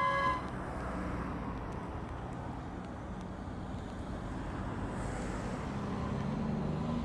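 Distant jet engines of a Boeing 737 (CFM56 turbofans) at taxi power, a steady low rumble. A short pitched beep sounds right at the start.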